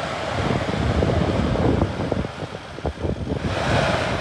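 Force Gurkha's four-cylinder diesel engine running hard under load as the 4x4 churns in soft sand, unable to climb the slope, with wind noise on the microphone.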